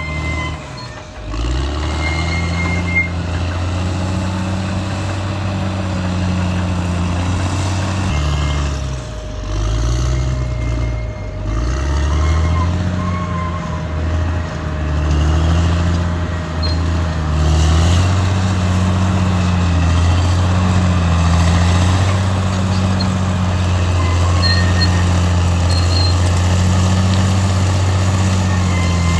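Caterpillar D6R XL bulldozer's diesel engine working under load, its pitch dipping and rising several times partway through as the load changes, with occasional brief high squeaks.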